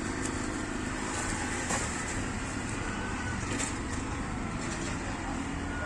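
Steady background street noise, like road traffic with a vehicle engine running.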